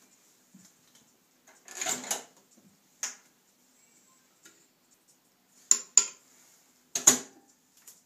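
A microwave oven's door opened and the food in its bowl stirred, with sharp clinks of a spoon against the bowl, then the door shut with a loud clunk near the end.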